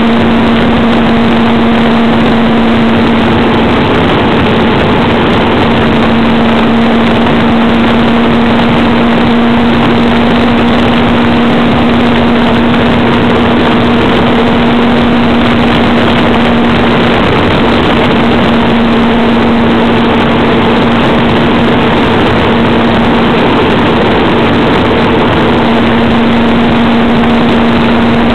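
Motorcycle engine running at a steady cruising speed, its even hum under a loud, steady rush of wind and road noise.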